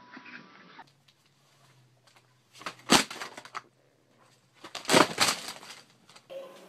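A cat scrambling on a cluttered dresser top: two bursts of clattering knocks about two seconds apart, the second as the cat drops off the dresser.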